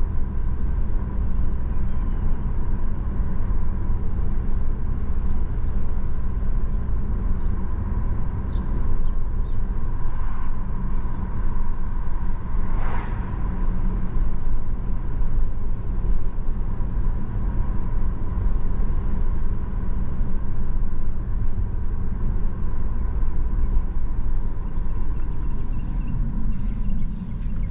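Steady road noise of a car driving at low speed, heard from inside the cabin: a continuous low rumble of engine and tyres, with a faint steady whine and a brief swell of sound about halfway through.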